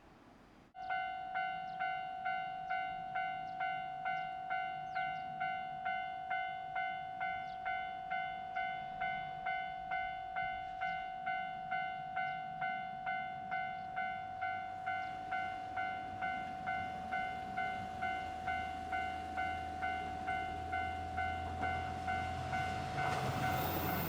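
Japanese railway level-crossing warning bell switching on about a second in and ringing in even electronic dings, a bit under two a second. From about halfway a diesel train's rumble grows under it and becomes loud near the end as the train reaches the crossing.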